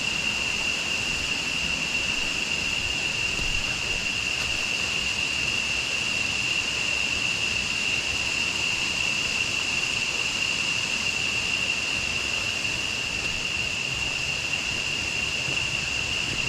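Jungle insects droning in one steady, unbroken high-pitched chorus over a hiss of running river water.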